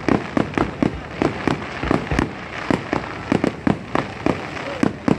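Aerial firework shells bursting one after another, an irregular string of sharp bangs about three to four a second.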